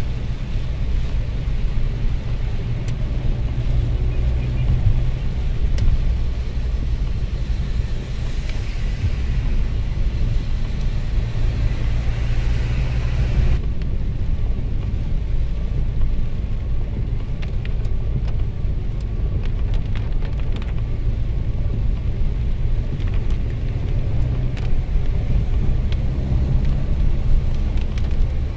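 Car driving on a wet road in the rain, heard from inside the cabin: a steady low road and engine rumble with the hiss of tyres on wet pavement. The hiss swells and then cuts off suddenly about halfway through.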